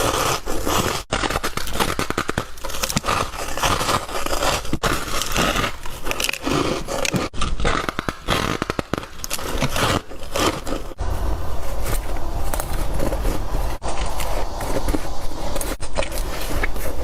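Close-up biting and chewing of soft, crunchy white ice: dense crackling crunches, broken by a few abrupt cuts, with a low rumble underneath in the second half.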